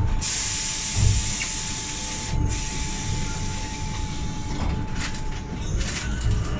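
Inside an Irisbus Cristalis ETB 18 trolleybus on the move: a low running rumble, with a loud steady hiss and a thin steady tone for about five and a half seconds. The hiss drops out briefly about two and a half seconds in.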